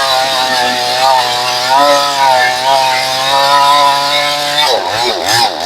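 Two-stroke 62cc chainsaw with a 20-inch bar running at high revs through a stringybark gum log, its engine note holding steady under load. Near the end the engine pitch swings quickly up and down several times.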